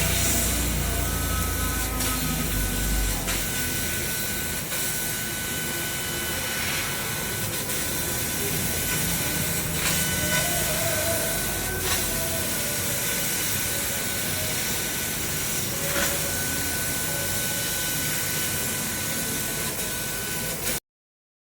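CNC laser cutting machine running: a steady hiss of assist gas and fume extraction, with a few faint clicks scattered through and a low rumble in the first few seconds. It cuts off suddenly near the end.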